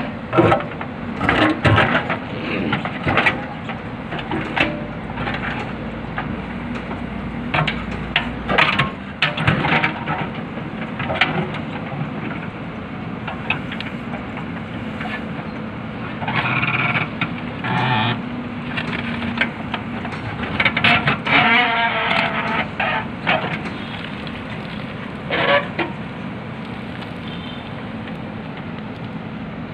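JCB backhoe loader's diesel engine running steadily under hydraulic load while the backhoe bucket digs, with repeated clanks and scrapes of the bucket on rocks and soil, coming in clusters.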